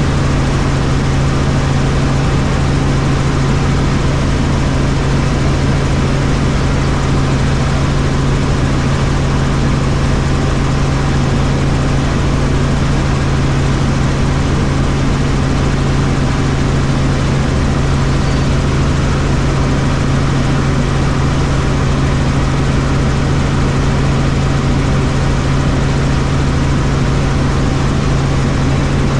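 Helicopter in flight: a loud, steady drone of rotor and engine with a strong low hum that never changes.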